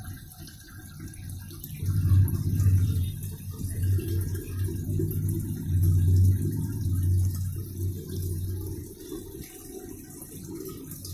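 Washing machine running with water rushing through it, over a low steady hum that swells about two seconds in and eases off near the end.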